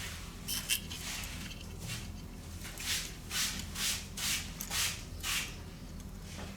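Repair work on a phone: a few light clicks, then a run of about six short scraping strokes, roughly two a second, over a low steady hum.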